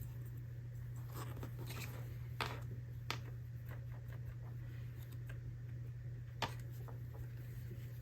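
Hands handling small packaged items: soft rustling and a few light taps, with three sharp clicks, about a second and a half into the middle and one near the end, over a steady low hum.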